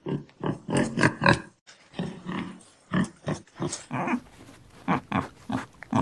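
Pigs grunting: a run of short, irregular grunts, two to four a second.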